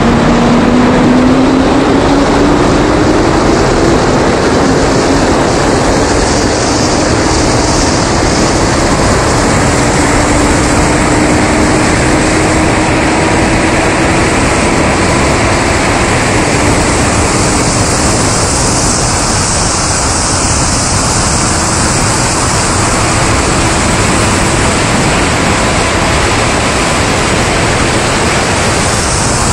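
Heavy wind roar on a camera mounted outside a car at highway speed, with a faint engine note climbing slowly underneath as the cars accelerate.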